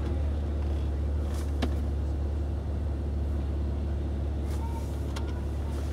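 Car engine idling, heard from inside the cabin as a steady low drone, with a single sharp click about a second and a half in.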